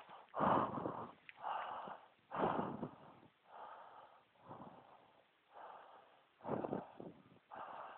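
A person breathing hard close to the microphone, with loud, rough breaths in and out about once a second, the louder ones coming about every two seconds.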